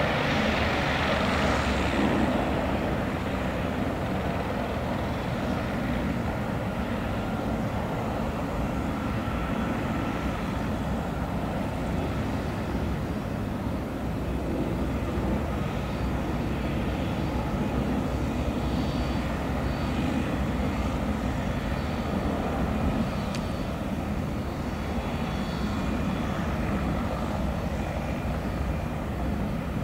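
Bell 407 helicopter's single turboshaft engine and rotors running on the ground: a steady turbine whine over the rotor noise, a little louder in the first couple of seconds and then settling.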